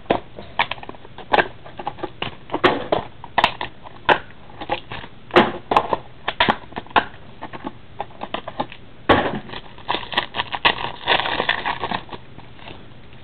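Trading card box packaging being torn open and handled by hand: irregular crinkling, crackling and snapping, busiest a little past the middle.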